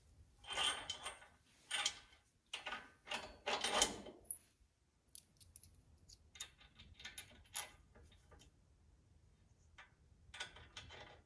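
Small metal hardware and tools clinking and rattling as they are handled during assembly, in irregular bursts with scattered sharp ticks.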